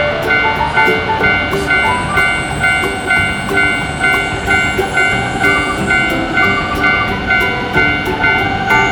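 Japanese railroad-crossing warning bell ringing in a steady repeating rhythm, with background music.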